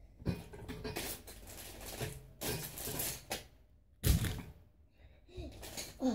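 Handling noise: rustling and light scraping of things being moved about, with a sharp thump about four seconds in.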